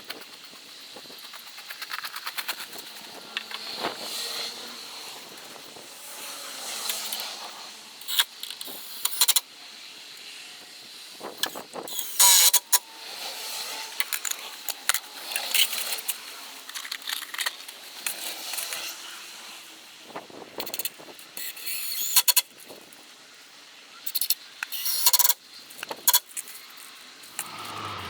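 Irregular knocks, clicks and clatter of building work, with the loudest sharp bursts about twelve, twenty-two and twenty-five seconds in.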